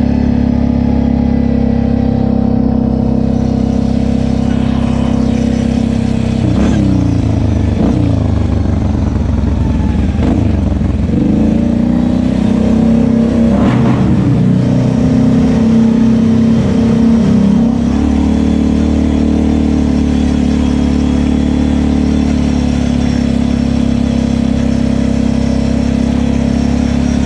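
Kawasaki KFX 700 ATV's V-twin engine running steadily. From about six to eighteen seconds in, its revs drop and rise in several swells, then settle back to an even run.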